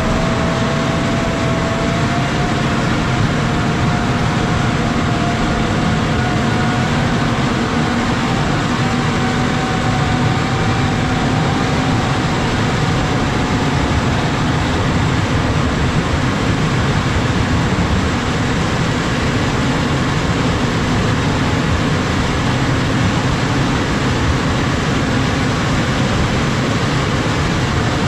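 John Deere 6155R tractor's six-cylinder diesel running steadily under load while its front plow pushes snow off the road, with a dense, even rushing noise and a faint whine that rises slightly in pitch over the first dozen seconds.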